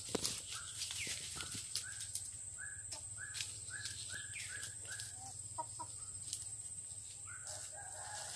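Chicken clucking in a run of short, repeated calls, two or three a second, that stops about five seconds in. A longer, lower call starts near the end.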